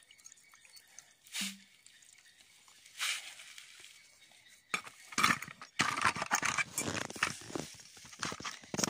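Metal parts of a Bajaj three-wheeler carburetor clinking and knocking together as they are handled in a plastic basin of petrol. A couple of isolated sounds at first, then a quick run of clinks and rattles over the last four seconds.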